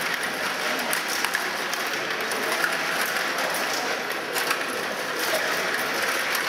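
Stiga table hockey game in play: quick, irregular clicks and rattles of the plastic players, control rods and puck, over a steady background hubbub.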